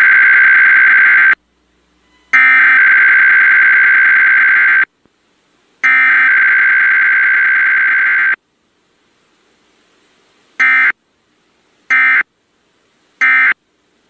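Emergency Alert System test tones: three long bursts of the screechy digital SAME header data, each about two and a half seconds with a pause between, followed by three short end-of-message bursts about a second and a half apart.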